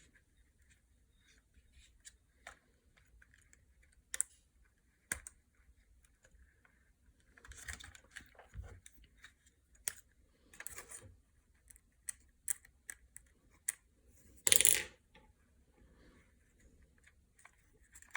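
Small clicks, taps and scrapes from a screwdriver and the drone's plastic arm being handled while its last screw is backed out. One louder, brief clatter comes about three-quarters of the way through.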